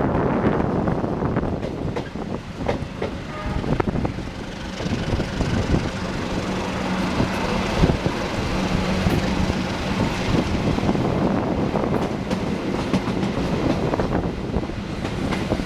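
Diesel-hauled passenger train pulling out of the station, its wheels clicking irregularly over rail joints and points over a steady rumble, with a low engine hum that comes and goes.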